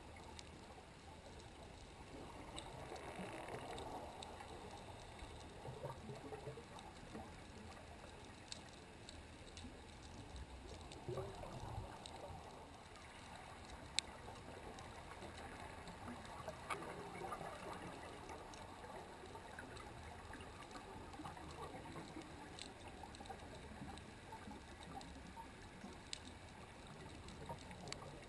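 Faint underwater ambience picked up by a camera sitting on the seabed: a steady low wash of water noise that swells now and then, with scattered sharp clicks and ticks, one louder click about halfway through.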